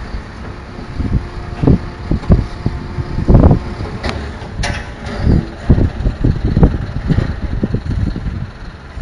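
Rear-loading garbage truck running in the courtyard below, heard from high above, with gusts of wind buffeting the microphone in irregular low thumps. A sharp knock comes about four and a half seconds in.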